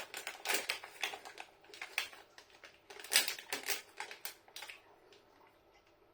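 Crunchy chewing of a breadcrumb-and-cornmeal-coated chicken snack bite, about two crisp crunches a second, dying away near the end.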